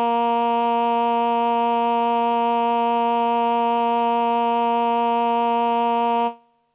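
Roland VP-330 vocoder-synthesizer's male Human Voice choir patch with delay, holding one steady synthetic 'aah' note. It cuts off sharply about six seconds in, leaving a short faint tail.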